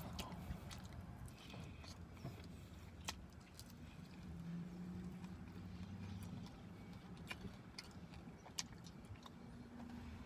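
Close-up chewing and lip smacking while eating chicken wings: irregular wet clicks over a low steady hum.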